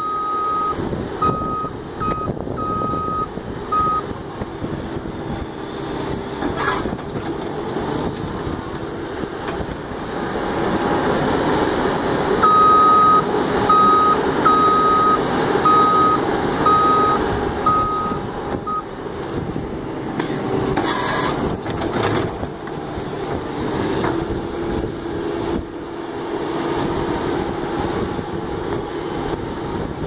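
A New Holland C238 compact track loader's diesel engine runs under hydraulic load as the machine works a backhoe attachment, louder for several seconds past the middle. The loader's backup alarm beeps in two spells, one at the start and one around the middle, and there are a couple of brief knocks.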